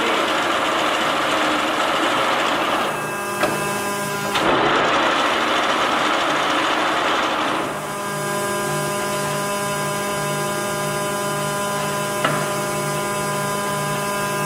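Timemaster gap bed engine lathe running under power with a loud mechanical gear-drive noise. About eight seconds in, the rough rushing sound gives way to a steadier whine with a slow regular pulse. A single sharp click comes about two seconds before the end.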